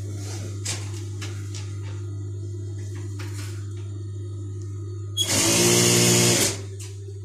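JUKI industrial sewing machine: its motor hums steadily while the cloth is handled, with a few light clicks, then the machine stitches in one short run of just over a second near the end.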